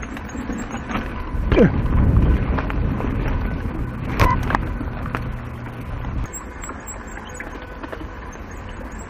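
Mountain bike riding along dirt singletrack: wind rumble on the action camera's microphone, with rattles and knocks from the bike over the trail, loudest about two seconds in.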